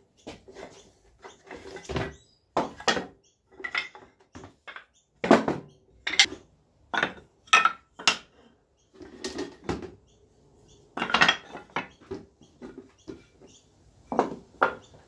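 Short offcuts of Merbau hardwood decking knocking and clattering against one another as they are set down and stacked: an irregular run of sharp wooden clacks, some in quick clusters, with pauses between.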